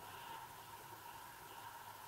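Faint steady hiss with an even mid-pitched tone underneath and no distinct events.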